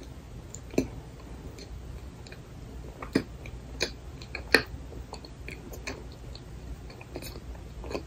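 Close-miked chewing of frozen cream-filled bun (Yonsei milk cream bread): wet mouth clicks and crackles scattered irregularly, the loudest a little past the middle.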